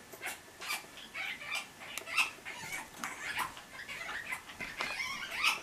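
A dog whining and yipping excitedly in short high cries, several a second, worked up because its food is being got ready.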